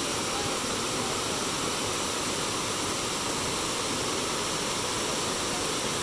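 River water flowing steadily, an even rushing sound.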